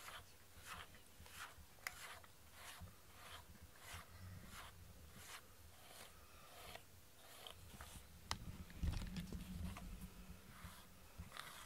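A pet slicker brush raked through a cat's fur, a faint scratchy stroke about one and a half times a second. About eight seconds in comes a louder, low muffled bump.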